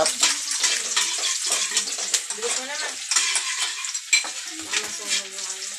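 Food sizzling as it fries in a pan on a gas stove, with a metal spatula scraping and clinking against the pan as it is stirred.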